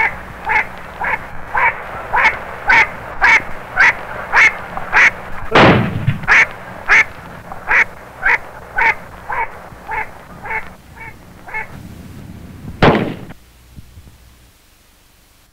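A duck quacking in a long, evenly spaced run of about two quacks a second that swells and then fades, stopping about three-quarters of the way through. Two shotgun shots cut across it, one a little over a third of the way in and a sharper one near the end, after which only a low hiss remains.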